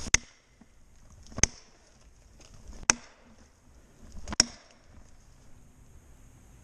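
Four sharp, evenly spaced blows of a tool struck on wood, about a second and a half apart.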